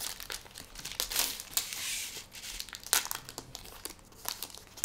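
Wrappers of Panini Mosaic basketball card packs being torn open and crinkled by hand: irregular sharp crackles, with a longer stretch of dense rustling between about one and two seconds in.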